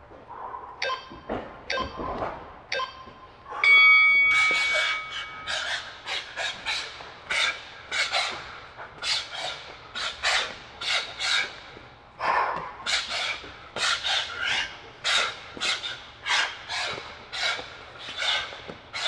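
Interval timer giving three short countdown beeps about a second apart, then a longer start tone. Then a rapid run of short, sharp, hissing exhales, about two a second, as punches are thrown while shadowboxing.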